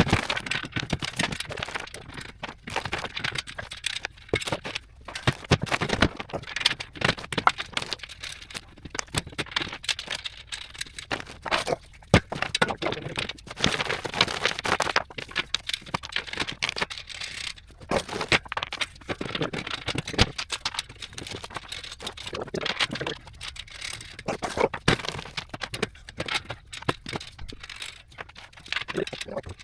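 Irregular clatter of knocks, clicks and scraping, as of parts being handled and worked, with no steady machine running.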